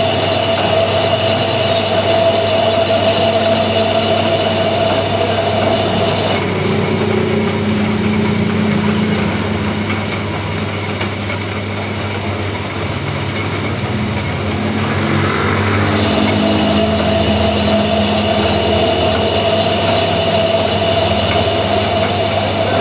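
Metal lathe running with a steady machine hum and a whine; the higher part of the whine stops about six seconds in and comes back near the end.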